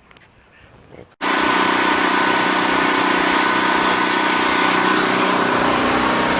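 About a second of quiet with faint ticks, then a portable gasoline generator's engine comes in abruptly and runs loud and steady.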